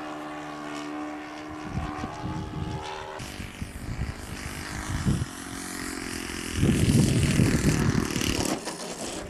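A radio-controlled model airplane's motor and propeller drone steadily in flight, and the sound shifts about three seconds in. Gusts of wind buffet the microphone throughout, loudest about seven to eight seconds in.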